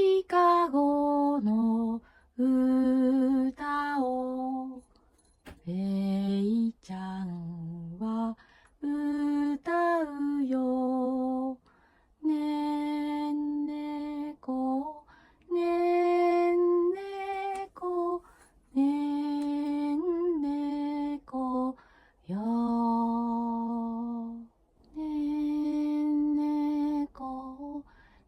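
A woman singing a slow lullaby unaccompanied, in short phrases of long held notes with brief pauses between them.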